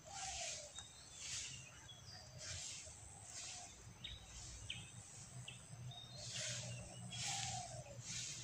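Rabbit chewing a dry, yellowed leaf, a soft crunching that comes in short bursts about once a second.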